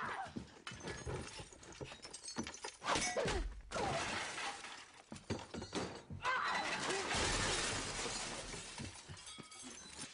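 Objects crashing and shattering, in two long stretches, with a couple of short pitched cries between them.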